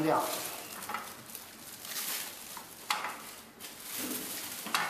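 Silicone cover sheet and rubber seal of a vacuum sublimation press being handled: soft rustling and rubbing, with a few light knocks.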